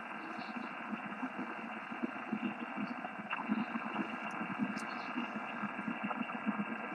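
Yaesu FT-1000MP HF transceiver's speaker putting out steady static and band noise on the 11-metre band, with an uneven low rumble underneath and no readable station. The hiss is cut off sharply above about 3 kHz by the receiver's narrow audio bandwidth.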